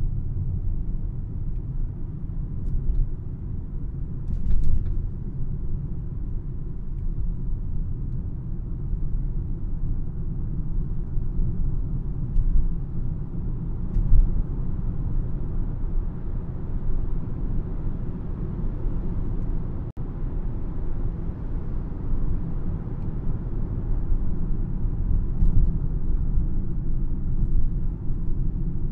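A car driving along a road: the steady low rumble of tyres and engine, with brief bumps about four seconds in and again about halfway through.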